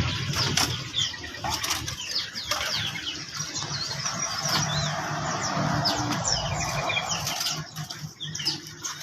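Many small caged songbirds chirping in short, overlapping calls, with wings fluttering against the cages.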